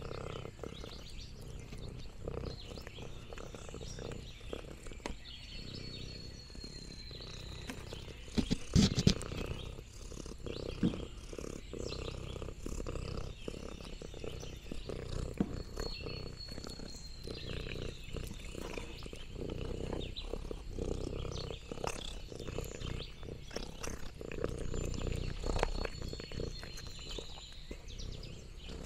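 Close-up of a domestic cat licking and chewing sliced meat, with many small wet mouth clicks and a low purr underneath. A louder knock comes about nine seconds in. A faint high falling whistle sounds three times, about ten seconds apart.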